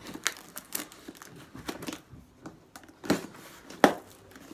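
A package being opened by hand: the packaging crinkles and tears in a run of irregular sharp crackles, the loudest near the end.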